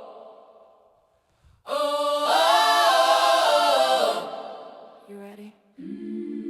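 Wordless choir-style vocal harmonies in a song's intro: a held chord fades away, then after a short pause a new chord swells in and fades, and near the end a steady low chord comes in.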